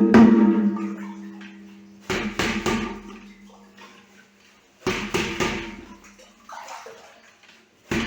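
Clusters of hard knocks, two or three at a time, on something that rings at one fixed pitch after each, dying away over a couple of seconds.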